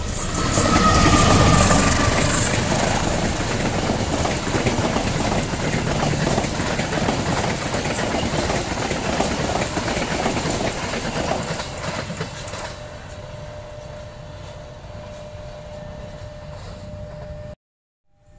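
KAI CC201 diesel-electric locomotive and its passenger coaches passing close by. The locomotive is loudest in the first couple of seconds, then the coaches' wheels clatter rhythmically over the rail joints. The clatter fades out after about twelve seconds, and the sound cuts off abruptly near the end.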